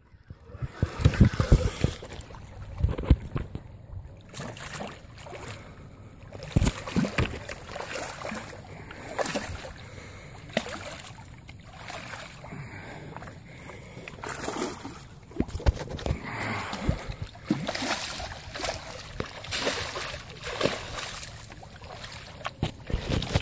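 Irregular splashing and sloshing of water as a hooked redfish thrashes at the surface, mixed with knocks and rubbing of the camera being handled.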